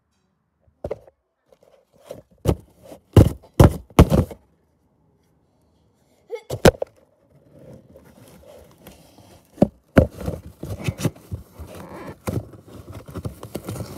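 Cardboard box being struck and broken open by hand: a run of sharp whacks in the first few seconds and another about halfway, then a stretch of tearing and crunching cardboard with a few more hits.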